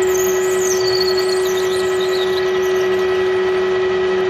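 Metal lathe running at speed with a steady whine while a twist drill in the tailstock chuck bores into a spinning aluminium bar, with faint high scraping from the cut during the first couple of seconds.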